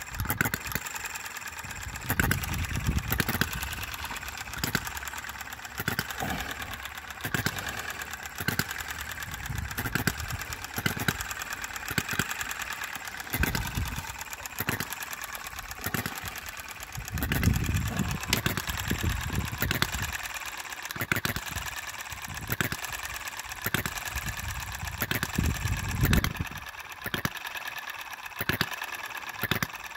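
Enjomor model hit-and-miss petrol engine running on its governor, set with a weaker governor spring. It fires irregularly, a stroke every one to four seconds, with a steady fast ticking between the firing strokes.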